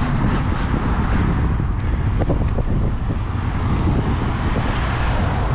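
Wind buffeting the microphone as a steady, loud low rumble, with road traffic going past.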